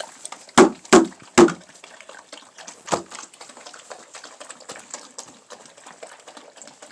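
Wet, sloppy sounds of mushy, watery soaked-kibble dog food being handled or lapped at: three sharp knocks in the first second and a half and another at about three seconds, then soft, steady wet clicking.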